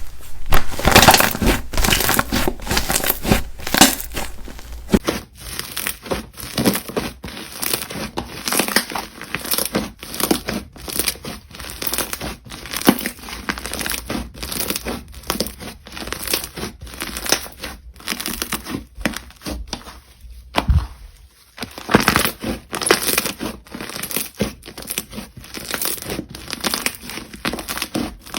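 Jelly slime being squeezed and played with by hand, making dense, irregular clicks and pops, with a brief lull about three quarters of the way through.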